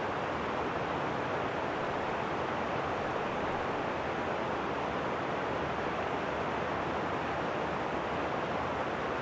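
Stream water rushing steadily over a low rocky cascade.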